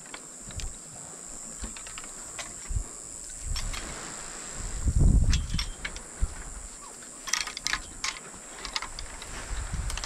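A steady, high-pitched insect buzz, with scattered light clicks and knocks from fishing rods and spinning reels being handled. A dull low thump comes about halfway through.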